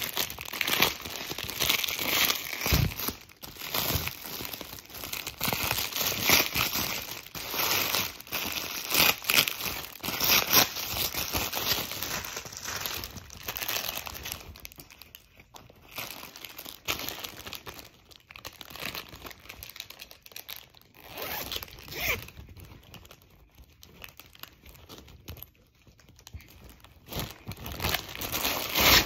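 Clear plastic packaging crinkling and rustling as hands unwrap and handle it, with an irregular run of crackles that is dense for the first half and more scattered later.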